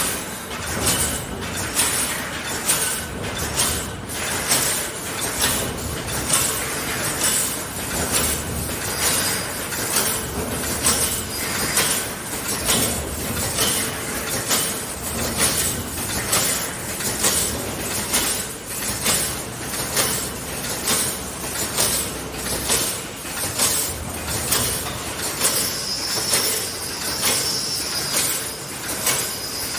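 Automatic 3D fence wire mesh welding machine cycling: sharp knocks repeating about once a second over a steady mechanical running noise as it feeds and welds the mesh.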